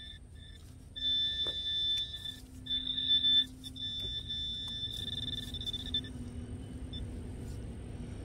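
Metal detector pinpointer probe sounding in the dig hole: short, quick high-pitched beeps, then longer steady tones from about a second in, as it is worked close to a buried coin, with light scraping of soil. The tone stops about six seconds in.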